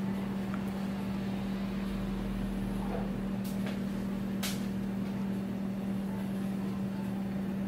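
A steady, even machine hum from a room appliance, with two faint clicks about three and a half and four and a half seconds in.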